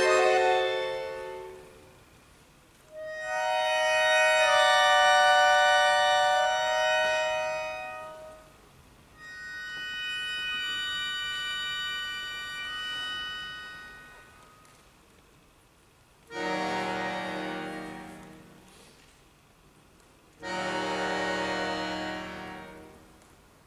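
Solo concert accordion playing long sustained chords separated by pauses. Each chord is held for a few seconds and then fades away. The first two sit high, and the last two are lower and start suddenly.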